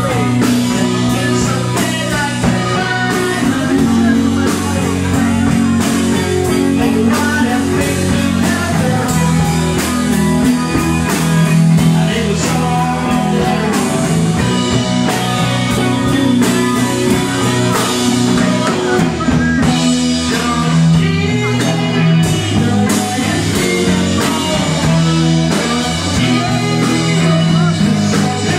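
Live rock band playing: electric guitars and a bass line over a drum kit, loud and continuous.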